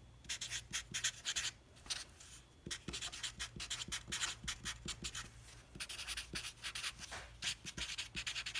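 Black felt-tip marker writing on a large sheet of paper: many quick strokes in runs, with short pauses a couple of times.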